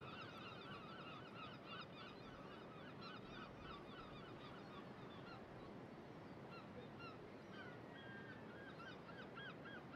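Faint chorus of many birds calling at once: short honking calls in quick succession, with a few longer, rising calls in the second half.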